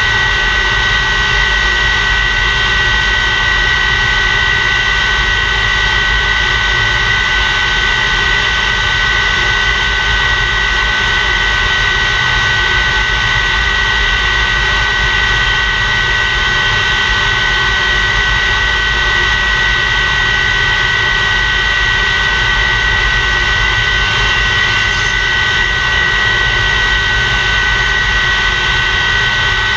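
English Electric Lightning's Rolls-Royce Avon turbojet (engine number 2) running steadily on a ground run: a continuous rush of jet noise with a high, two-toned whine that does not change in pitch or loudness.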